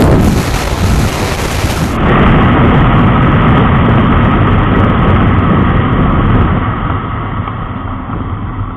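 Onboard sound of a single-cylinder motorcycle at speed: heavy wind rush over engine noise. About two seconds in it changes to the Bajaj Pulsar 220F, its engine running while the bike slows down from high speed at the end of a drag run, with the sound getting quieter near the end.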